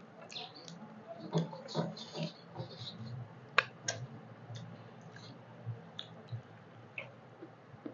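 Fingers scraping and wiping the last food off metal plates while eating by hand: scattered small clicks and scratches, with two sharper clicks about halfway through.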